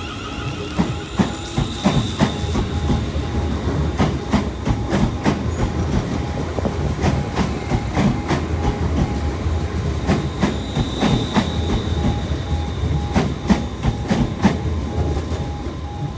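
ScotRail Class 380 Siemens Desiro electric multiple unit running through the station, a steady low rumble with wheels clicking over rail joints in a quick repeating clickety-clack.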